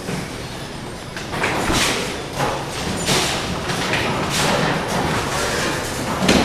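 Duckpin bowling alley sounds: a steady low rumble of balls rolling on wooden lanes, broken four times by sharp clattering crashes that echo through the hall. The player's own small duckpin ball is released about four seconds in and rolls down the lane.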